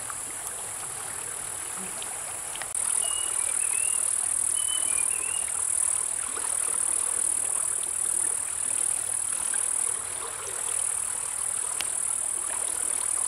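A steady, high-pitched drone of insects over the rushing of a rocky stream, louder from about three seconds in, with a few short bird chirps near the middle.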